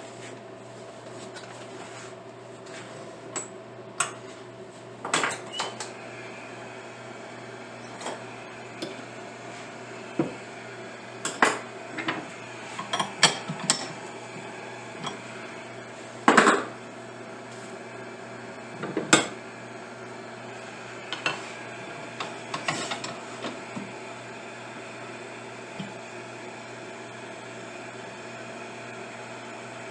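Irregular metallic clinks and knocks of tools being handled and set at a wood lathe, over a steady machine hum.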